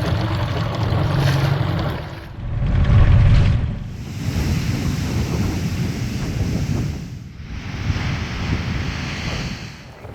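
Strong wind buffeting the microphone over the rush of water and waves, with a heavy low rumble. It breaks off briefly several times.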